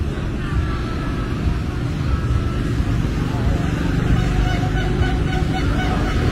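Busy street ambience: motor traffic running steadily, with indistinct voices of people talking nearby.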